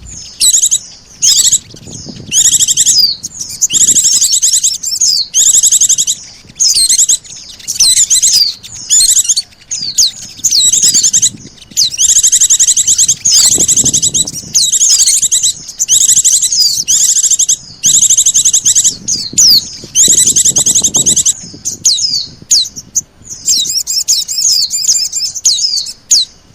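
Bird-lure recording of small songbirds, pleci (white-eyes) and sogon: loud, rapid high trills and quick chirps in bursts of about a second, one after another with short gaps.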